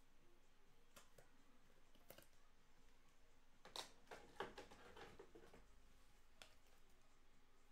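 Near silence with a few faint clicks and light rustles, a small cluster of them near the middle: trading cards and their plastic sleeves being handled.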